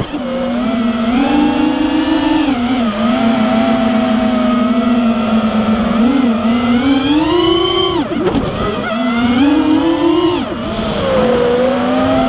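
Whine of a 5-inch FPV racing quad's Emax RB2205 2300KV brushless motors spinning DAL 5x4.5x3 tri-blade props, its pitch rising and falling with the throttle. The pitch swings up a few times and drops sharply about eight seconds in and again near ten and a half seconds, as the throttle is chopped during flips and dives.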